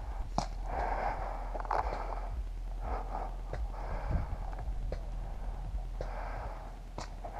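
A paintball player's breathing close to a head-mounted camera: noisy breaths in and out, one every second or two, with a few sharp clicks between them.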